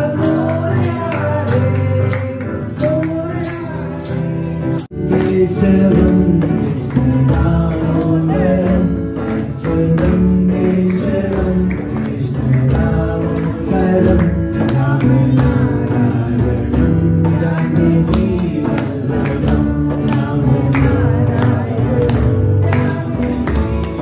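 Group devotional bhajan singing to acoustic guitar and hand drum, with a steady beat of hand-clapping. About five seconds in, the music jumps abruptly to another passage.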